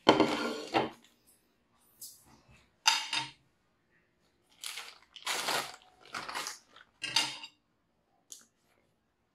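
A ceramic plate with a steel fork set down on a wooden table with a sharp clatter, followed by a series of short clinks and rustles as things are handled around it.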